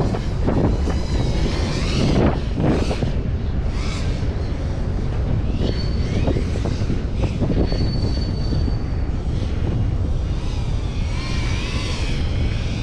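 FPV racing drone's motors and propellers whining, swelling and fading in repeated quick passes as the throttle changes, over heavy wind noise on the microphone.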